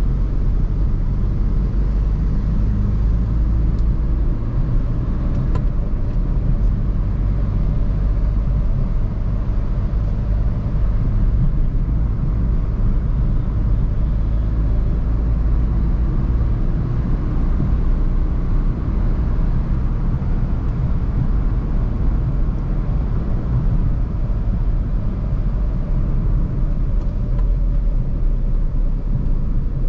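Maruti Suzuki Swift Dzire driving: a steady low rumble of road and engine noise.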